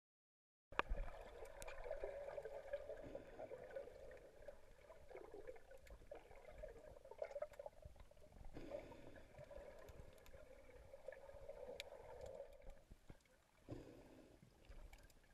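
Muffled water sound recorded underwater, with scattered faint clicks. It cuts in abruptly just under a second in and dips briefly near the end.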